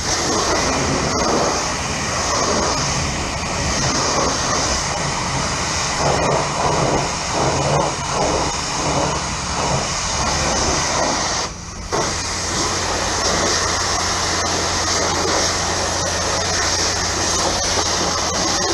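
High-pressure wand of a self-serve car wash spraying water onto a pickup's bodywork: a loud, steady hiss with a low hum underneath. The spray cuts out for a moment about two-thirds of the way through, then resumes.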